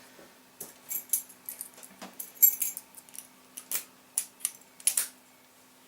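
Irregular light metallic clicks and clinks of a small padlock and lock picks being handled, about a dozen sharp taps, the loudest about two and a half seconds in.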